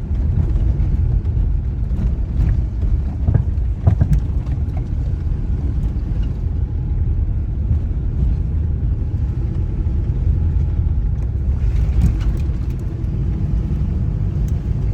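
Jeep Liberty KJ on the move: steady low vehicle rumble, with a few short knocks and rattles, a cluster of them about three to four seconds in and another near the end.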